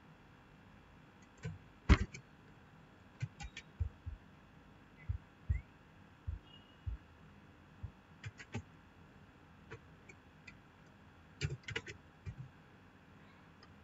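Computer keyboard keystrokes and mouse clicks, irregular single taps and short clusters, some with a dull thump.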